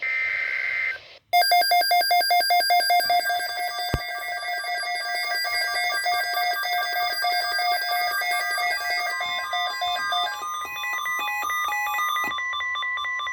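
NOAA Weather Radio emergency alert tones for a tornado watch. It opens with a second-long burst of buzzing digital header data, then a loud electronic alarm of rapid beeps and stepping tones. A steady single alert tone joins about nine seconds in, with a sharp click about four seconds in.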